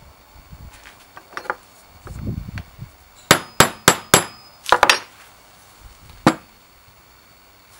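A hammer tapping the end of a screwdriver set in a rusted slotted screw on a cast-iron hand grinder, to break the seized screw free. There are sharp metal-on-metal strikes: four quick ones, then a short cluster, then one more.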